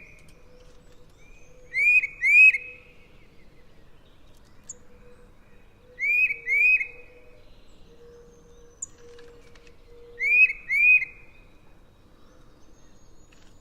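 Tufted titmouse singing its whistled "peter, peter" song: three two-note phrases, about four seconds apart.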